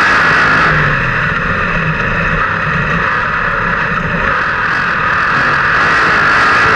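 360 sprint car's V8 engine running hard, heard from an onboard camera on the car. The engine sound dips slightly for a few seconds in the middle and builds again near the end.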